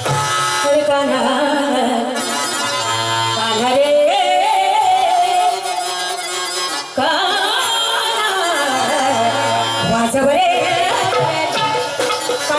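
Tamasha gavlan, a Marathi folk song, sung with traditional instrumental accompaniment: a voice holds long, wavering notes, and the music gets suddenly louder about seven seconds in.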